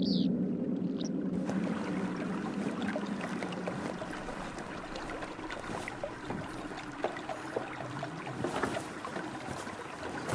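Qanat water running and trickling through an underground payab pool: a steady wash of water noise scattered with small drips and splashes. A low music drone fades out in the first second or so.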